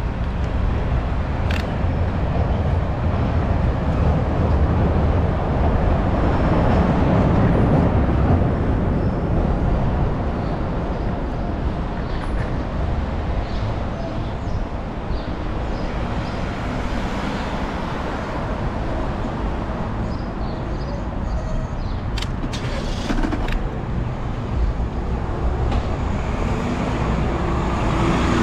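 City street traffic heard from a moving bicycle: a steady mix of passing cars' engines and tyre noise with wind rumble on the microphone. The sound swells about a quarter of the way in, and a few light clicks come through.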